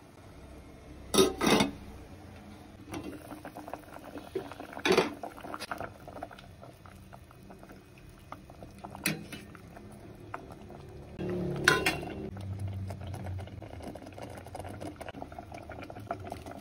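Fish soup bubbling in a stainless steel pot on a gas stove, with a handful of sharp clinks and knocks as a ladle and a salt shaker are worked against the pot.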